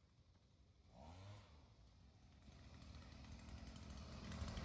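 Faint small-engine drone growing steadily louder, with a brief rising-and-falling whine about a second in.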